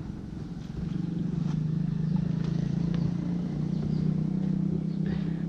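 A small engine running steadily with a low drone, growing louder about a second in.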